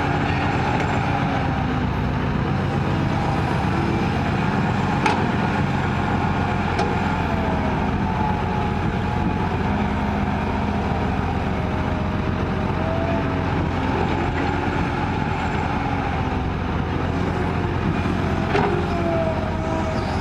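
Excavator's diesel engine running steadily as it digs and loads soil into a truck, with a whine that wavers in pitch and a few short sharp knocks.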